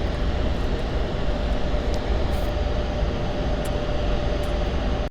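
Propeller race plane's engine droning steadily with one held tone, over a heavy low rumble.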